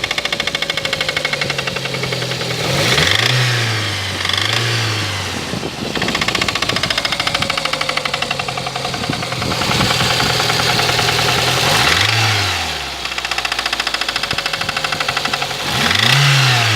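Lada Kalina engine idling and given several short blips of the throttle, with a fast, even knocking running through it: the engine knock for which it is due for repair.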